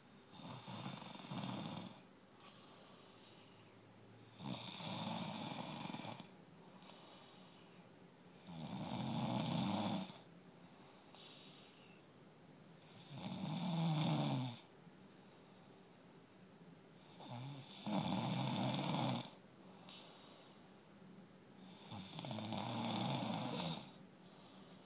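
Rasping snores, six of them, each lasting a second or two and coming about every four to five seconds in a steady breathing rhythm.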